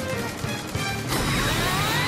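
Cartoon battle sound effects over background music: crashing impacts and bullets whizzing past, with rising ricochet-like whines from about a second in.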